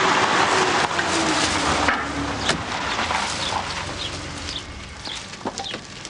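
A car engine and tyre noise easing down and fading over the first two seconds as the car comes to a stop. Then birds chirping in many short, high calls, with one sharp click about two and a half seconds in.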